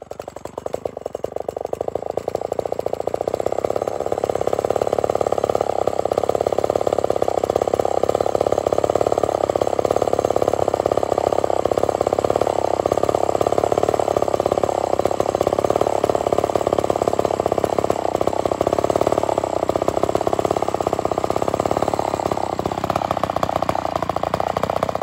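Vintage Lombard 68cc chainsaw's two-stroke engine idling unattended. It grows louder over the first few seconds, then runs steadily. The idle is out of adjustment and needs fixing.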